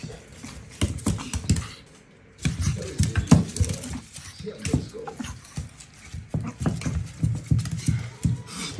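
Japanese Chin's claws pattering and scrabbling on a parquet floor during rough play, with irregular soft thumps as the dog twists and rolls about. There is a short lull about two seconds in.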